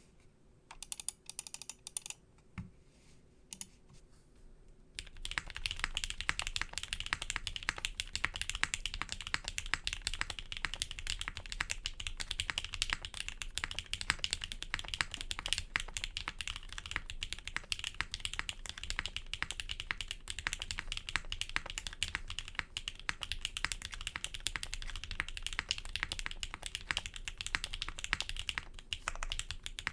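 Custom 60% mechanical keyboard being typed on: gummy o-ring mounted, aluminium half plate, lubed and filmed Gateron X linear switches with GMK keycaps. A few scattered keystrokes, then fast continuous typing from about five seconds in.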